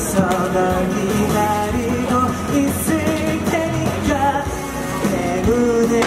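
A pop song with singing over a band backing, playing throughout.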